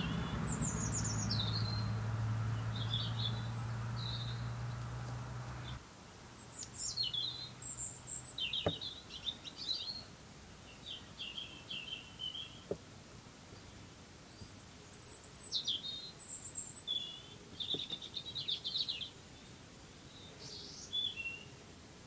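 Small birds chirping and singing in short repeated phrases. A steady low hum underlies the first six seconds and stops abruptly, and a couple of faint clicks come later.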